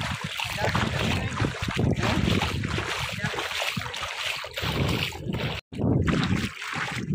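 Bare feet wading through shallow water, splashing with each step, with wind buffeting the microphone. The sound cuts out for a moment about five and a half seconds in.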